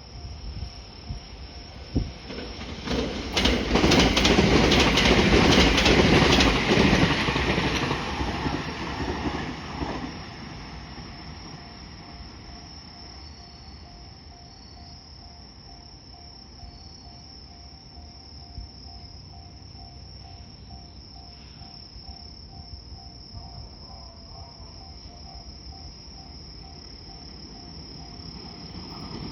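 A train passing over a level crossing: the rush and clatter of its wheels on the rails builds about three seconds in and fades by about ten seconds. The crossing's warning alarm rings in an even, repeating beat before and after the train passes.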